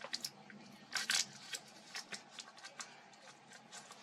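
Small clicks and rustles of a smartphone and its accessories being handled, with a brief louder rustle about a second in.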